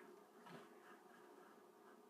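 Near silence: room tone with a faint steady hum and one faint soft tap about half a second in.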